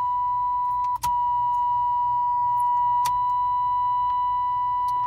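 Chevy S10's dashboard warning buzzer sounding one steady high tone for about five seconds, broken off briefly about a second in, with the ignition key switched on.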